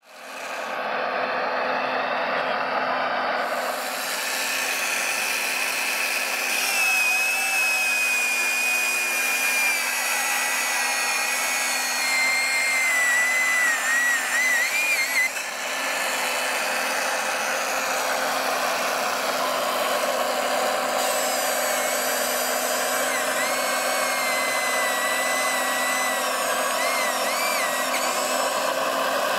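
Electric saw head on an RC Liebherr 956 model excavator cutting through a log: its motor whines, the pitch sagging and wavering under load over a steady rushing noise. The whine cuts out about fifteen seconds in and picks up again a few seconds later.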